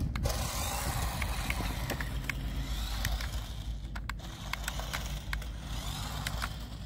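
Toy RC stunt car's small electric drive motors and multi-roller wheels running on concrete as it drives off, over a steady low rumble, with a few faint clicks.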